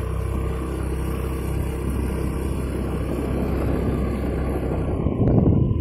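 Motorcycle engine running steadily under way, with wind rumbling on the microphone that gusts louder near the end.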